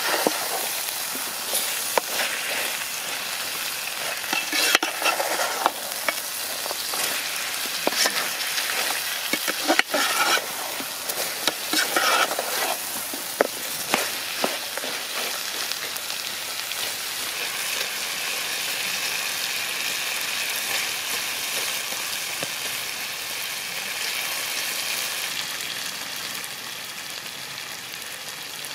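Chicken curry sizzling and bubbling in a metal pot over a wood fire, with a metal ladle stirring and scraping against the pot for about the first half. After that the ladle stops and only a steady sizzling hiss remains.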